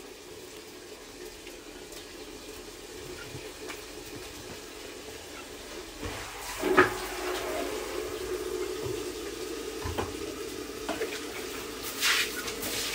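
Water running steadily from a tap. The flow grows louder about six seconds in, with a few short knocks.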